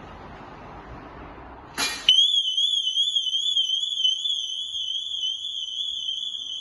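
A Vodafone/Cobra 4615 van alarm siren sets off about two seconds in with a loud, high-pitched, fast-warbling tone and keeps sounding. It is triggered because the ADR driver-recognition cards are not in the van while someone tries to start it.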